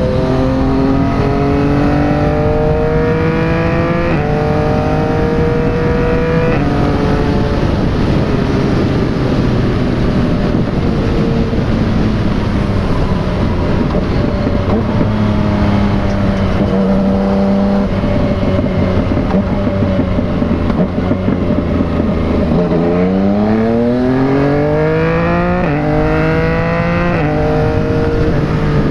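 Yamaha MT-09's three-cylinder engine through a replica Akrapovic exhaust, rising in pitch as it accelerates through the gears with short breaks at each upshift, then running steadily at cruising speed. It pulls up through the revs again after about twenty seconds, with two more quick upshifts near the end, over wind noise on the microphone.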